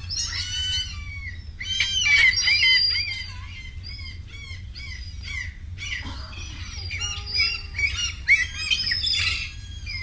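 Many bird-like chirps, whistles and squawks in quick, overlapping succession, like a tree full of birds. They thin out in the middle and thicken again near the end.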